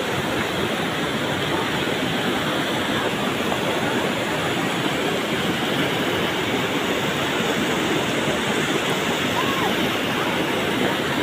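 Muddy flash-flood water rushing in a steady, dense torrent.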